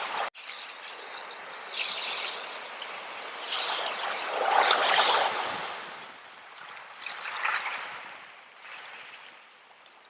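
Water washing over and running through seashells: a rushing, trickling wash that swells and fades several times, loudest about four to five seconds in.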